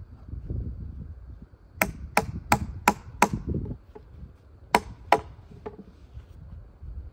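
Sharp blows striking wood, with no chainsaw running: a quick run of five hits, about three a second, then two more a second and a half later and a faint last one, over a low rumble of handling.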